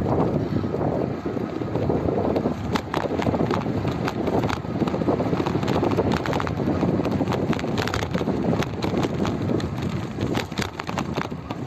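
Wind buffeting the microphone as it moves along a concrete road: a steady low rumble, with frequent irregular clicks and knocks over it.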